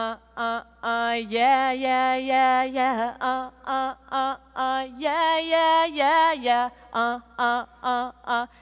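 A woman singing a very simple tune alone, with no accompaniment. Short sung syllables are broken by two long held notes, about a second in and again about five seconds in.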